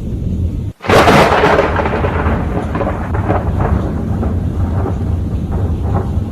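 Thunder: a low rumble that cuts out briefly, then about a second in a sudden sharp thunderclap that rolls away into a long low rumble.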